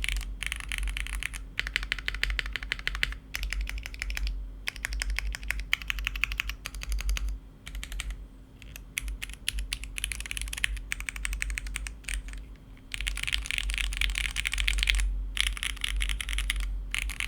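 Typing on a Spark67 mechanical keyboard with GMK doubleshot ABS keycaps: rapid key clacks in runs of a few seconds, broken by short pauses.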